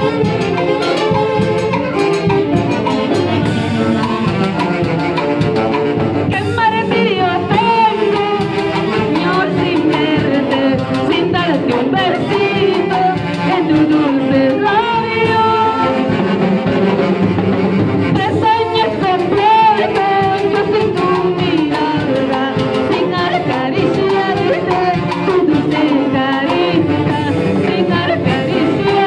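Live orchestra with a saxophone section and timbales playing, with a woman singing into a microphone over the band.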